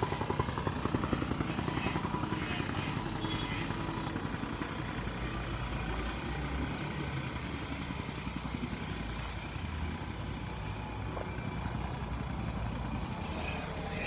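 Motor vehicle running, a steady low rumble of engine and road noise while moving along a rough dirt road.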